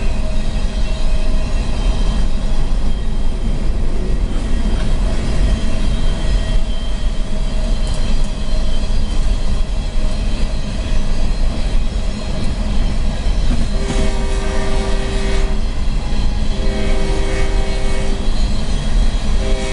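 Steady rumble of a freight train running alongside, heard from inside a moving car, while the lead diesel locomotive's multi-note air horn sounds up ahead. It gives a long blast about fourteen seconds in, a second long blast about two seconds later, and starts another right at the end.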